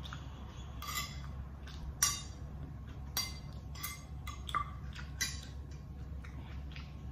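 Metal spoon clinking and scraping against a plate while scooping up the last of the rice, about six sharp clinks spread over several seconds, the second the loudest. A steady low hum runs underneath.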